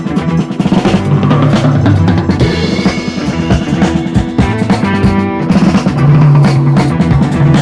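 Background music with a steady drum-kit beat and bass.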